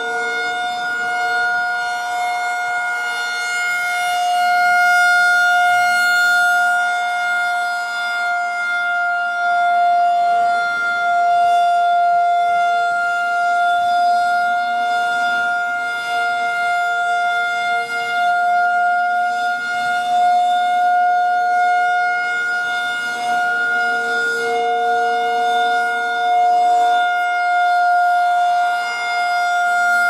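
Federal Signal 2001-130 rotating electromechanical siren sounding the steady alert signal: one unchanging tone that swells and fades in loudness as the horn turns toward and away from the listener.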